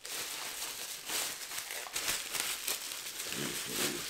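Plastic bag and bubble wrap crinkling and rustling as they are handled and pulled off a fish finder part, irregular and continuous.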